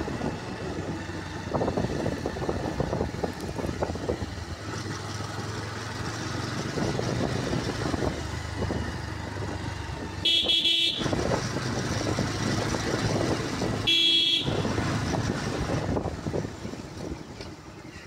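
Motorcycle running steadily on the road, with a horn sounding twice in short blasts about four seconds apart in the second half.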